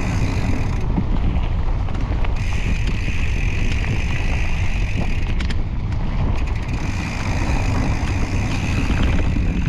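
Mountain bike riding a trail, with wind buffeting the microphone and a heavy low rumble. A higher buzzing, typical of a freehub ratcheting while coasting, stops for two stretches of pedalling. A few short rattles of the bike over bumps come about halfway through and near the end.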